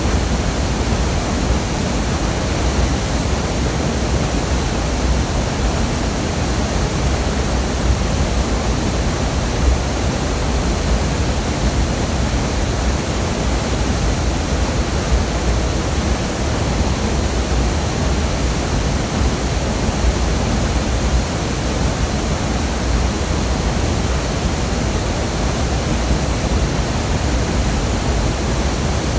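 Longdang Waterfall: loud, steady rushing of falling water.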